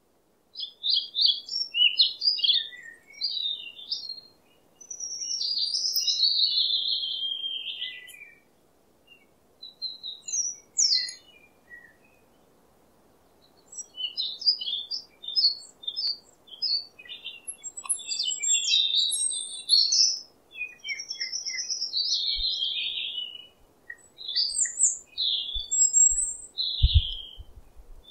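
Songbirds chirping and trilling in short bursts, several overlapping calls high in pitch, with brief pauses between phrases.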